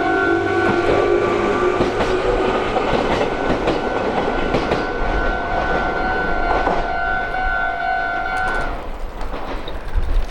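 Meitetsu electric train running through a Japanese level crossing, its wheels clacking over the rail joints, while the crossing's warning bell rings. The bell stops about nine seconds in as the train clears the crossing.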